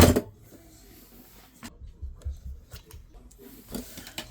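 A sharp clunk right at the start, then faint rubbing and a few light knocks: tools being picked up and handled.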